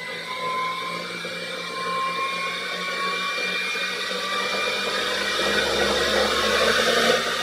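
Ankarsrum stand mixer motor running at high speed, spinning the stainless steel bowl. Its whine climbs slowly in pitch and grows louder as the speed is turned up, then drops away abruptly.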